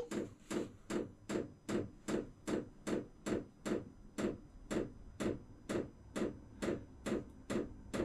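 Electric fuel dosing pump of a Vevor diesel air heater clicking steadily, about two and a half sharp ticks a second, each click a pulse of diesel being pumped to the burner during the heater's start-up warm-up cycle.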